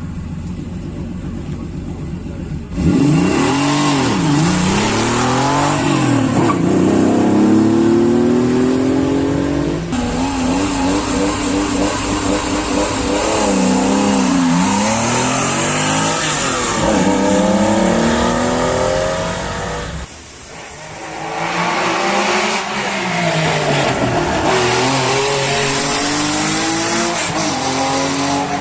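Porsche 911 rally cars' flat-six engines at full throttle, in several cut-together passes: the pitch climbs hard through each gear and drops at each shift, with a quieter steady engine sound for the first few seconds before a loud car arrives.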